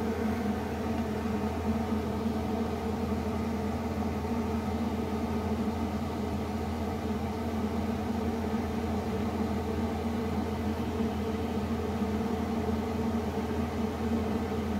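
A steady, even machine-like hum with a faint hiss over it, unchanging throughout.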